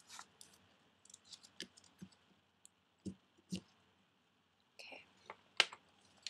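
Metal nib of a dip quill pen scratching and clicking on paper in short, scattered strokes, then a sheet of paper picked up and handled, rustling with one louder crackle near the end.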